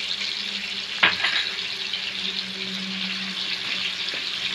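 Onions and ginger-garlic paste frying in hot oil in a pan, sizzling steadily while being stirred. A spoon knocks sharply against the pan about a second in.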